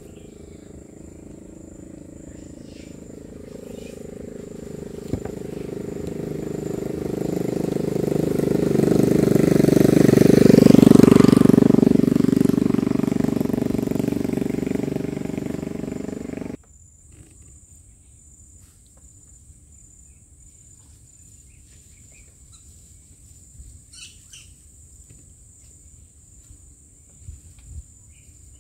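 An engine passing by, growing louder to a peak about eleven seconds in and then fading, until it cuts off abruptly about sixteen seconds in. After that, faint outdoor ambience with a few short chirps.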